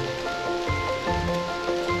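Background music, a melody of held notes that change every half second or so, over a steady patter of rain.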